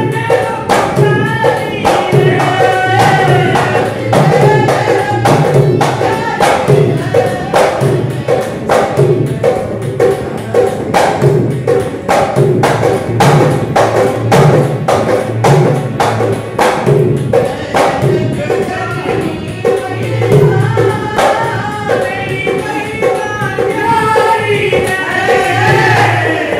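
A dholak drum played in a steady rhythm together with a harmonium, with a voice singing a Hindi devotional song (mata ki bhet) over them.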